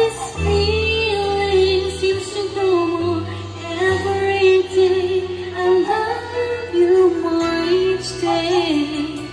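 A woman singing into a condenser microphone along with a sing-along backing track, her voice gliding over held low bass notes that change every second or two.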